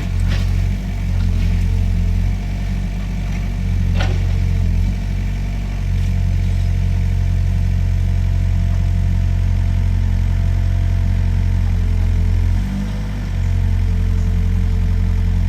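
Mini excavator's engine running steadily, its note dipping briefly several times as it works. There is a sharp clank about four seconds in.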